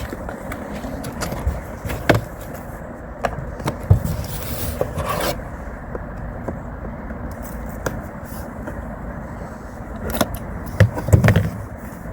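Scattered clicks, knocks and scrapes from handling a folding tripod light stand, over a steady low background noise.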